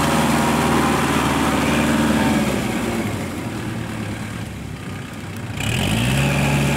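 Kubota L5018 tractor's four-cylinder diesel engine working under load with a rotary tiller in a wet paddy; the revs sag about halfway through and climb again near the end.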